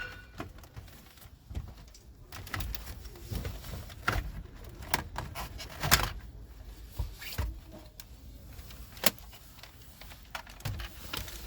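Scattered clicks and knocks of plastic interior trim being pried and handled, as the centre console's climate control panel assembly is worked loose.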